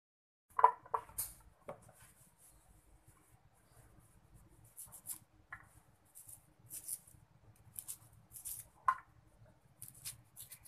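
Small knife slicing peeled shallots thinly on a plate: faint, irregular crisp cuts. A few light clatters on the plate come about half a second to a second in, and another near the end.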